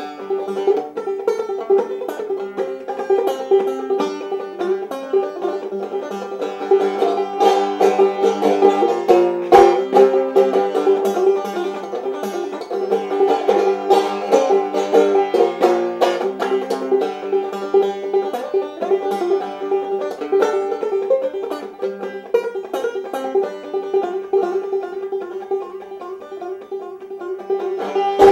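Five-string banjo played solo in an old-time knock-down style, a fast, steady run of downstruck notes and strums over a ringing drone.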